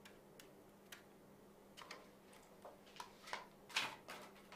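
Faint handling sounds of a homemade slide projector's parts being moved on a table: scattered light clicks and taps, sparse at first and busier in the second half, with the loudest knock near the end.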